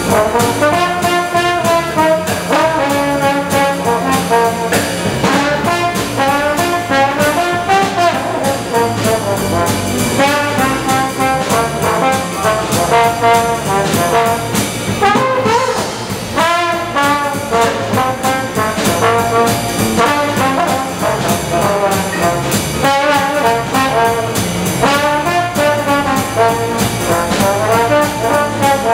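A live traditional jazz band playing, with the trombone leading out front and the rest of the band backing it.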